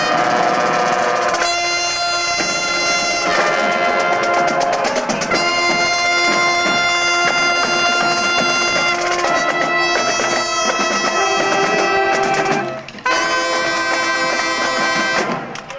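Marching band brass (horns and sousaphone) playing a tune in long held chords. It breaks off briefly about thirteen seconds in, comes back in, then stops just before the end.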